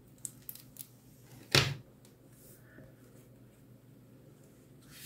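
A few light clicks from crafting tools and paper being handled on a table, then one sharp knock about a second and a half in, like something set down or tapped on the tabletop.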